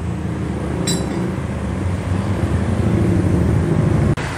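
Steady low engine rumble of a workshop, with one ringing metal clink about a second in as metal parts are handled at the scooter's CVT.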